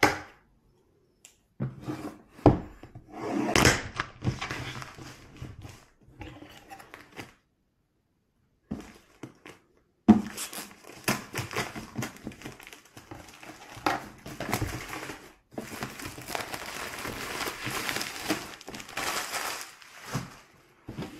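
Clear plastic shrink-wrap being snipped with scissors, then torn and peeled off a cardboard box, crinkling and crackling in stretches with a few sharp clicks. There is a pause of about two seconds near the middle.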